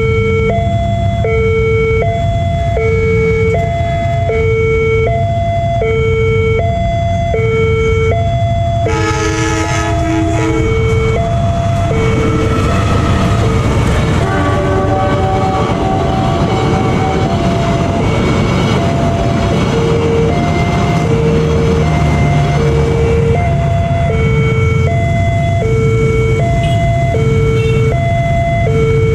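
Railway level-crossing warning siren sounding a steady two-tone alarm, switching between a low and a high tone about every three quarters of a second. About nine seconds in a train horn blows for a couple of seconds. A passenger train then rumbles through the crossing for about ten seconds while the alarm keeps going.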